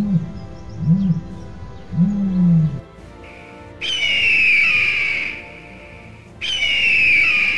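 Dinosaur roar sound effects over background music: three short low growls about a second apart, then two long high screeching calls that fall slightly in pitch.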